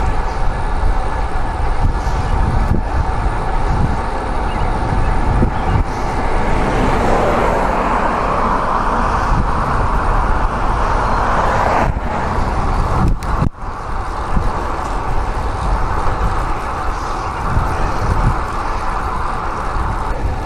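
Rushing wind on the microphone of a bike-mounted action camera while riding a road bike, with a road vehicle passing that swells and fades between about six and twelve seconds in.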